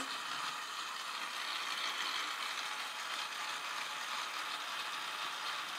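LEGO WeDo 2.0 motor running steadily, spinning the model helicopter's main and tail rotors.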